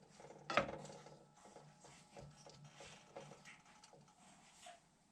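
Venison and onions frying faintly in oil in a skillet, with many light irregular crackles and ticks, and one louder knock about half a second in.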